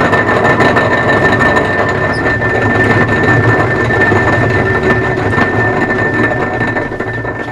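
Turnell & Odell metalworking lathe running, drilling a 13 mm hole into the end of a tailstock quill, with a steady high whine over the machine noise. The noise begins to fade near the end as the lathe winds down.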